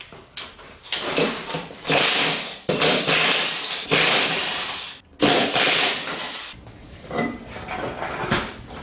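Half-inch battery-powered impact wrench running in several bursts of about a second each, hammering the 17 mm lug nuts loose.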